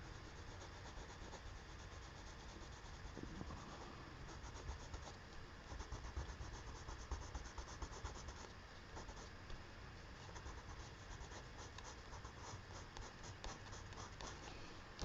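Colored pencil rubbing on paper in quick, faint back-and-forth shading strokes.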